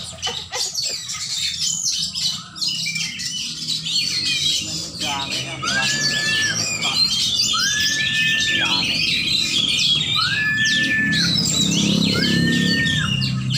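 Many caged songbirds singing and chattering at once in a dense, overlapping chorus of chirps and harsh calls. From about the middle on, one clear, level whistled note repeats about every two seconds above the chatter.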